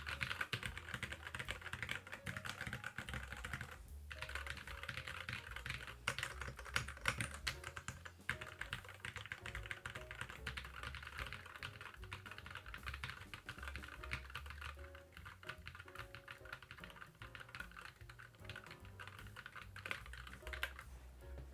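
Rapid, continuous typing on a Keychron Q11 split mechanical keyboard fitted with Cherry-profile double-shot PBT keycaps, with a short pause about four seconds in and the typing growing lighter near the end. Background music plays underneath.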